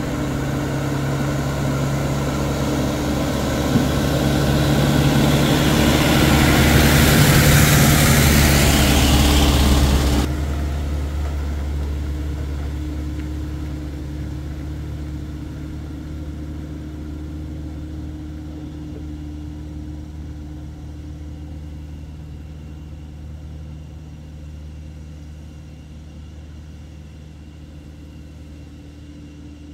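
Small dump truck with an excavator loaded on its bed drives up and past, its diesel engine running steadily. The engine grows louder as it approaches, drops off sharply as it goes by about ten seconds in, then fades as the truck moves away.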